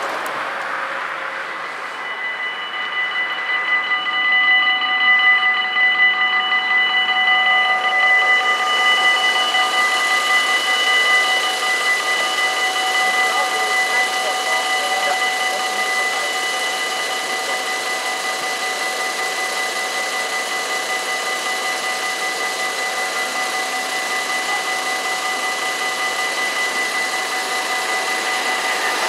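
Level-crossing warning bells of an automatic half-barrier crossing ringing steadily, starting about two seconds in: the crossing is warning of an approaching train while its barriers come down.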